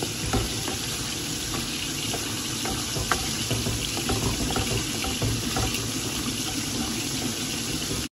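Moong dal with fish head cooking in an aluminium pan with a steady hiss as a wooden spatula stirs it, with scattered light knocks of the spatula against the pan.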